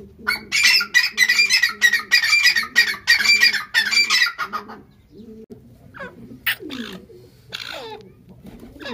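Grey francolin calling: a loud, rapid run of shrill repeated notes lasting about four seconds, followed by fainter sliding notes near the end. A low, repeating call runs underneath.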